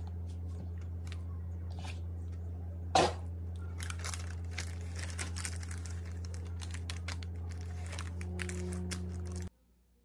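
Parchment paper crinkling and a silicone spatula scraping thick banana-bread batter out of a bowl into a paper-lined loaf pan, with one sharp knock about three seconds in, over a steady low hum. Everything cuts off abruptly just before the end.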